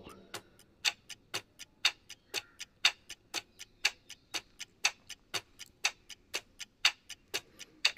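Countdown-timer sound effect: a clock ticking about four times a second, with louder and softer ticks alternating like a tick-tock.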